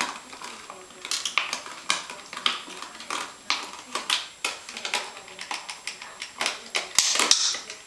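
A Welsh Springer Spaniel puppy chewing and wriggling in her fleece-lined bed: irregular clicks, taps and rustles, with a longer burst of rustling about seven seconds in.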